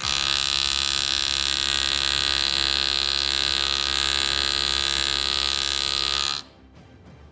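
Jeweler's powered handpiece running steadily against a silver ring, then cutting off abruptly about six seconds in.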